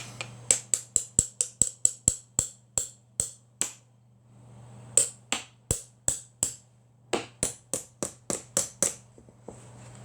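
A run of sharp, quick clicks in three bursts, about a dozen, then five, then nine, likely from a small vintage hand tool such as a spokeshave being worked in the hand, over a steady low hum.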